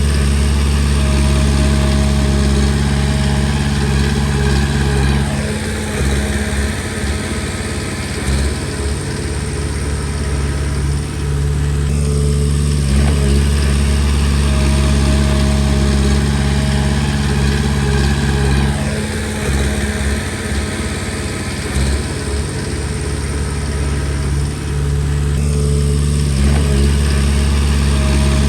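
Komatsu D20P bulldozer's diesel engine running under work, its note dipping and picking up again about every six to seven seconds as the load changes.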